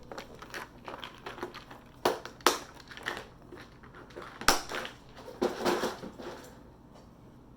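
Plastic parts of a TV being handled and closed up: crackling and rustling with a few sharp knocks, the loudest about two and four and a half seconds in.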